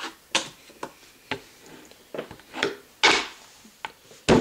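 A fingerboard clacking against a wooden tabletop as tricks are popped and landed: a string of about eight sharp, uneven knocks, the loudest near the end.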